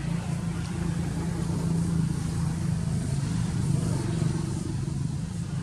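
A motor engine running with a steady low hum.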